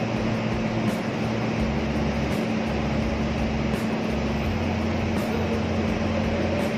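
Cummins diesel generator set running steadily: a constant machine drone with a steady hum through it.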